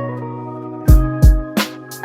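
Background music: a held chord, then a drum beat comes in about a second in.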